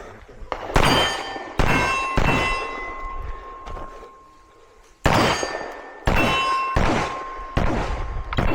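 Pistol shots fired at steel targets, each followed by the clang of a metal plate ringing. A quick string of three comes early, a pause of about two and a half seconds follows, then another string of four at a slightly slower pace.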